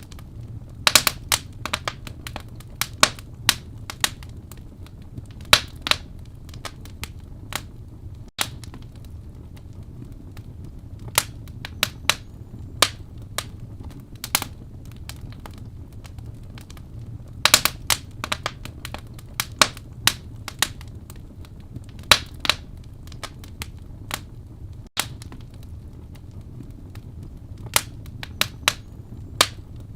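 Wood fire burning in a fireplace, crackling with irregular sharp pops and snaps over a low steady rumble. The pops come in scattered clusters of louder snaps.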